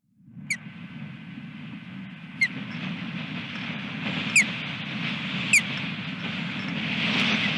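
Wind buffeting the osprey nest-cam microphone, a steady low rumble with a hiss that grows louder toward the end. Over it an osprey gives four short, sharp chirps, each sliding downward.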